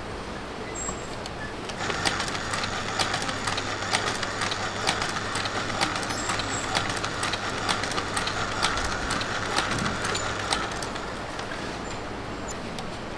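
A machine running with a steady whirr and many sharp clicks over a low hum. It starts about two seconds in and stops about ten and a half seconds in.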